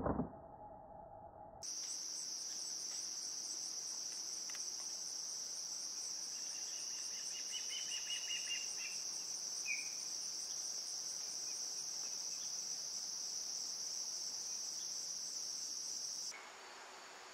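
Insects trilling in a steady, high-pitched continuous chorus that starts about two seconds in and cuts off abruptly near the end. A brief faint chirp sounds about ten seconds in.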